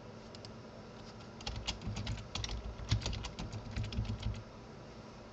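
Typing on a computer keyboard: a couple of key clicks near the start, then a quick run of keystrokes through the middle that stops about a second before the end.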